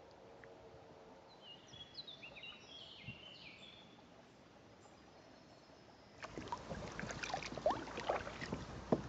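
Water splashing and gurgling around a folding kayak on the move, getting louder from about six seconds in. Before that it is quiet, with a few faint bird chirps.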